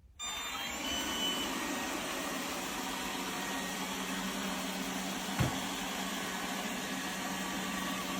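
Lefant M210P robot vacuum starting back up as it resumes cleaning, its motor running steadily with a low hum. A single knock about five seconds in.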